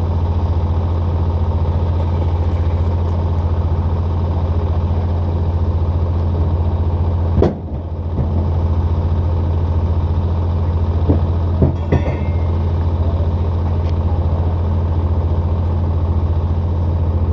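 A vehicle engine running steadily with an even low drone, briefly dropping away about seven and a half seconds in, with a few short clatters around twelve seconds.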